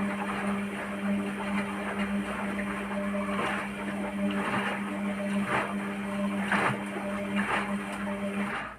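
Hotpoint-Ariston washing machine on its spin cycle: a steady motor hum with loud knocks about once a second. The knocking during the spin is the fault.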